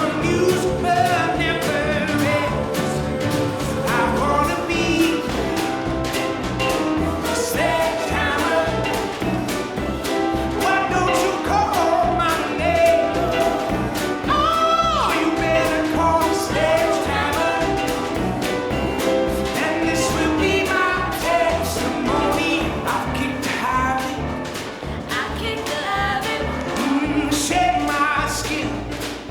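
A recorded song with a lead vocal over a steady beat and bass line, with many sharp clicks all through it.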